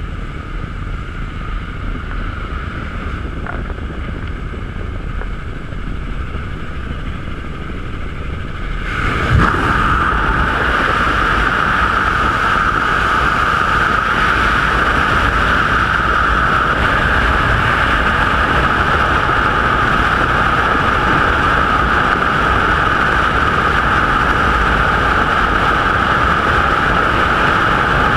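Engine drone and door wind inside a small propeller jump plane. About nine seconds in it gives way to loud, steady wind rushing over the helmet-camera microphone as the skydiver exits into freefall.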